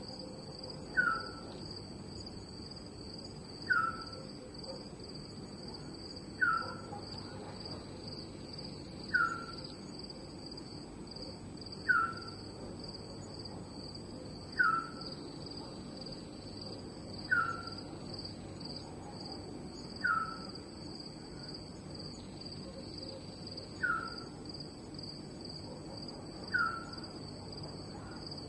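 Night ambience of crickets trilling steadily and high, with a short call that falls in pitch repeating about every three seconds, loudest of the sounds.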